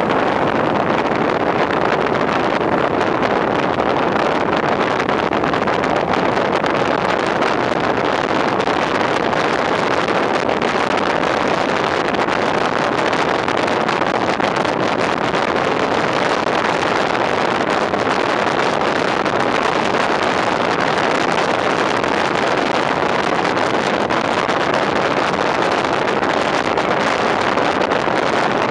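Steady rush of wind and road noise from a fire engine (pump tender) driving at speed, with wind buffeting the microphone held at the cab window.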